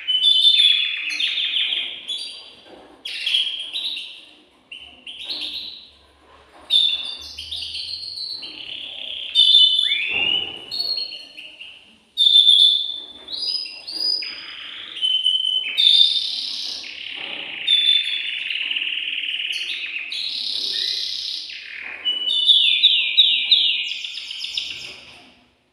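Male domestic canary singing a long varied song of high trills and rolling phrases with short breaks, ending in a fast run of repeated notes. It is the excited song of a male in breeding condition.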